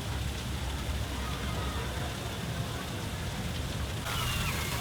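Steady outdoor noise, a low rumble under a hiss. About four seconds in it shifts abruptly, with faint higher pitched sounds over it.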